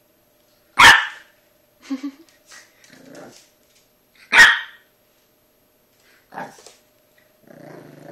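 French Bulldog puppy barking at a brush it is afraid of: two sharp, loud barks about a second in and about four and a half seconds in, a few quieter barks between, and a low growl near the end.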